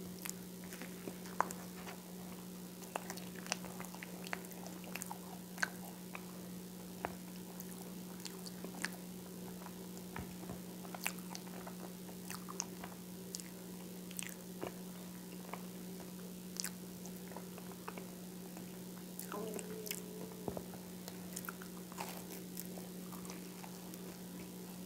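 Close-miked chewing and biting of whole wheat toast spread with peanut butter, with irregular crunches and wet mouth clicks, over a steady low hum.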